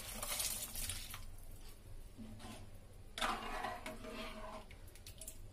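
Boiled kidney beans and their cooking water poured from a bowl into a pan of thick masala gravy, splashing in during the first second or so. From about three seconds in, a ladle stirs the beans through the liquid.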